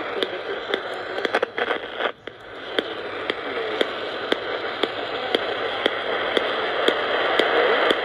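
AM radio tuned to 1020 kHz giving out hiss and static, with a sharp regular click about twice a second and the station's voice faint beneath the noise. The noise dips briefly about two seconds in.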